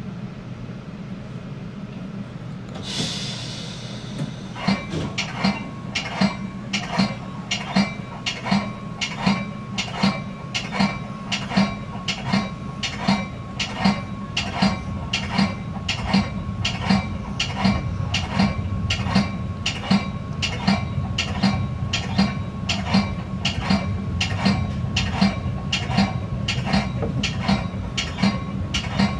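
Commuter train's running rumble heard inside the cab car. About three seconds in comes a short hiss of air, then the train's bell starts ringing in an even beat of somewhat under two strokes a second and keeps on ringing.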